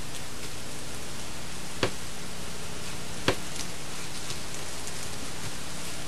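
Steady hiss with a faint low hum, the noise floor of an old VHS recording, broken by two short clicks about two and three seconds in.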